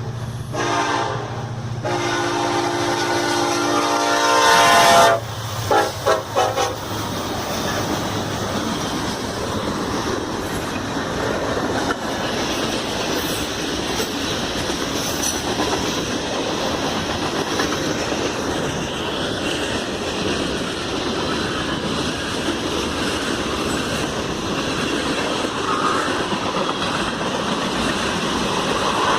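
Norfolk Southern diesel locomotive horn sounding long blasts for the first five seconds, then a quick series of short toots. The train then rolls past with a steady rumble and wheel clatter.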